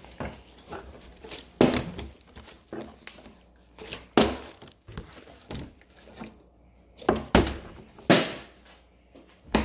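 Partly filled plastic water bottle flipped and landing on a wooden table: several sharp thunks, one every second or two.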